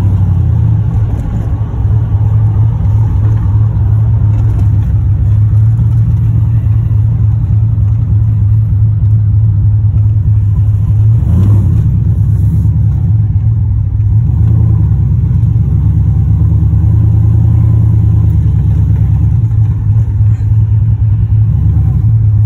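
Pickup truck's engine and exhaust heard from inside the cab while driving slowly, a loud, deep, steady drone that eases off briefly a little past the middle before settling back.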